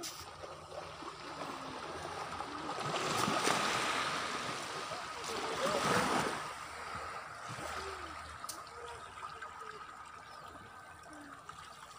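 Sea waves washing onto a sandy beach: a steady rush of surf that swells twice, about three and a half and six seconds in, then eases off.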